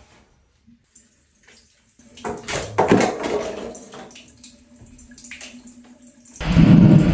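Bathroom sink tap running and hands being washed, with knocks and clatter about two to three seconds in. A sudden, much louder rush of noise starts near the end.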